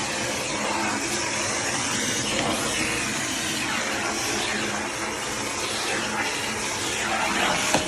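Shark vacuum cleaner running over carpet, a steady rush of suction with its whine rising and falling again and again.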